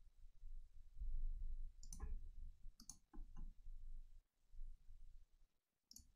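Faint computer mouse clicks: a cluster of four about two to three and a half seconds in, and one more near the end, over a low room rumble.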